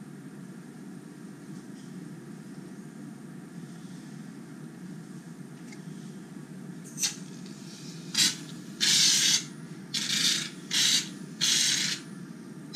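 Aerosol shaving-cream can sprayed into a glass bowl in about six short hissing bursts, starting about seven seconds in, over a steady low background hum.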